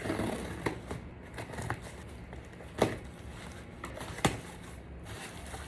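A parcel box being opened by hand: packaging crinkling and tearing, with a few sharp clicks, the loudest about three and four seconds in.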